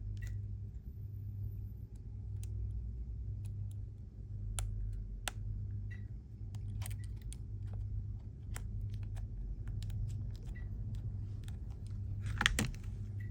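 Steady low electrical hum with scattered faint clicks and taps of small tools and parts being handled on an opened iPhone, as the screen and battery flex connectors are pressed back into place. A short scraping rustle comes near the end.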